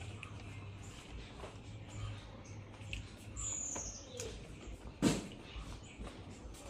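A single short, high chirp, falling slightly in pitch, a little past the middle, and a sharp knock about a second later, over a steady low hum.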